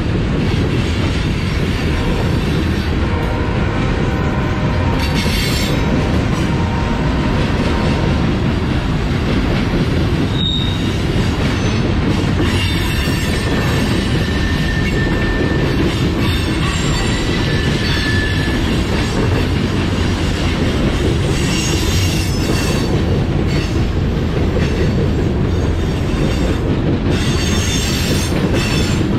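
Loaded coal hopper cars rolling past on the rails with a steady, heavy rumble of wheels and trucks. A few short, high wheel squeals come through partway along.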